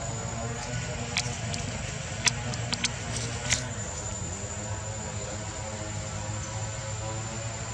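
Steady low mechanical hum with a thin high steady tone above it, and a few sharp clicks between about one and four seconds in.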